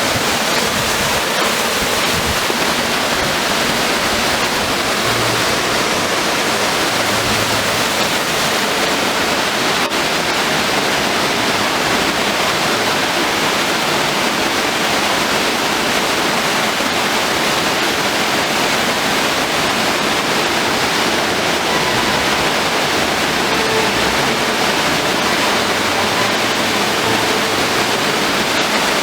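Waterfall pouring steadily: a loud, even rush of falling water with no letup.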